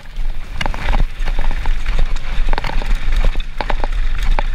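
Mountain bike being ridden fast over rough trail: a quick, irregular run of clicks, knocks and rattles from chain and frame, over a steady low rumble.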